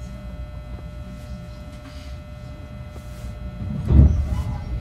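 Inside a JR West 221 series train's motor car: a low rumble with a steady electrical hum, and a single heavy thump about four seconds in.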